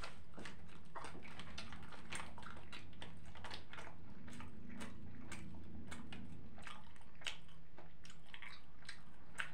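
Close-miked chewing of a mouthful of shawarma with the mouth closed: irregular small mouth clicks throughout. A low hum sounds from about four to six and a half seconds in.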